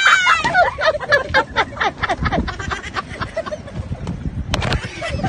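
A person laughing: a high squealing laugh at the start, then a run of quick breathy giggles that fade out by about two and a half seconds in. A single sharp click comes near the end.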